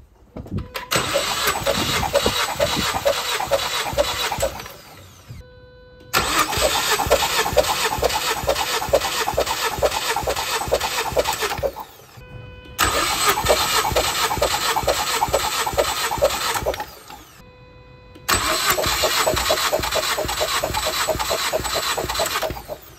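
Ford Focus ST's 2.0 L EcoBoost four-cylinder cranked over on its starter with the spark plugs out, for a compression test: the engine turns with a steady rhythmic chug and never fires. There are four separate runs of about four to six seconds each, one for each cylinder, each cranking until the gauge needle stops rising.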